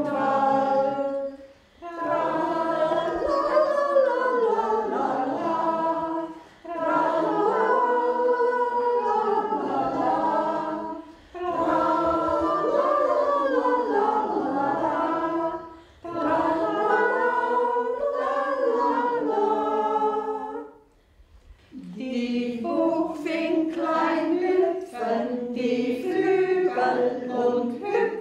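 A group of elderly women singing an old song together in unison, in phrases of about four to five seconds with short pauses for breath between them; near the end the singing turns quicker and choppier.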